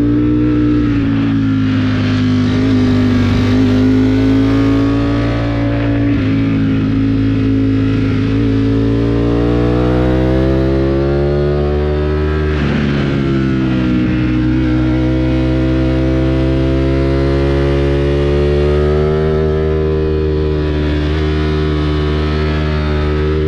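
Motorcycle engine running under load in second gear, its pitch climbing as the bike accelerates. About twelve seconds in the throttle is eased and the pitch drops sharply, then it picks up and climbs again.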